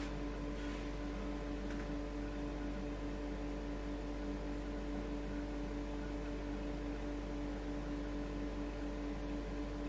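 Steady electrical hum made of several held tones, with faint soft rustles about half a second in and again near two seconds in.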